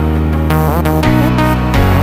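Background music: an upbeat electronic track with a steady beat and sustained bass.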